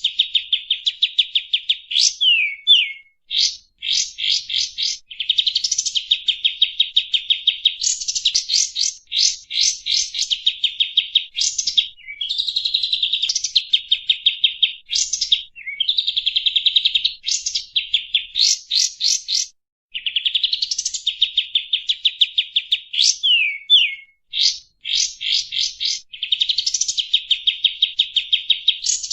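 Kapas tembak songbird singing without pause in high phrases a few seconds long: fast buzzing trills alternating with runs of quick, sharp notes that sweep up and down.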